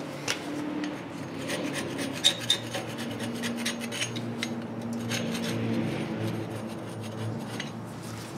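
Rust and road grime being scraped and scrubbed off the face of a car's steel front wheel hub: a continuous rasping rub with scattered clicks, and two sharp ticks a little over two seconds in.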